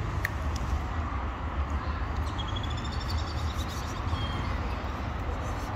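Outdoor street ambience: a steady low rumble, with a short run of high chirping notes a little past halfway.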